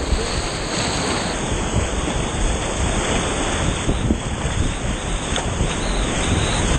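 High-water whitewater rapids rushing and splashing against the tubes of an inflatable catamaran raft, close to the microphone, as a steady loud roar of water.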